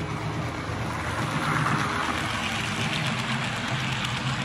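Model passenger train rolling past on the track, its wheels and motor making a running rumble that swells as the cars come by, over a steady low hum.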